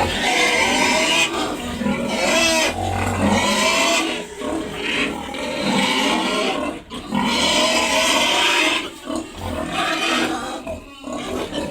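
Pigs squealing loudly: long, harsh squeals one after another, broken only by brief pauses.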